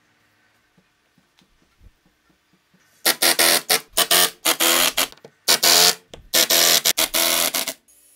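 Cordless impact driver driving screws through steel drawer slides into a wooden board, in five bursts, the last the longest at over a second. Faint clicks of handling come before it.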